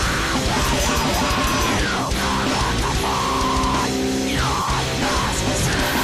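Loud, dense heavy metal music with distorted electric guitars.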